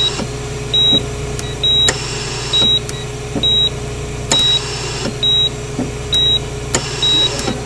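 Hospital heart monitor beeping evenly, one short high beep a little under once a second, over a steady electrical hum.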